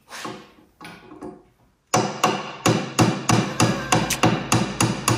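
Hammer striking a metal punch set in a hole in the side plate of a Scott Bonnar Supercut reel mower frame, knocking a part out. After a couple of softer knocks comes a quick run of ringing metal-on-metal strikes, about four a second, from about two seconds in.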